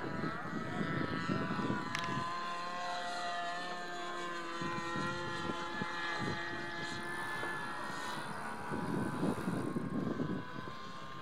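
Radio-controlled model aircraft flying overhead: a steady motor-and-propeller whine with several pitches at once, drifting slowly up and down as the plane moves. Gusts of wind on the microphone rumble underneath near the start and again near the end.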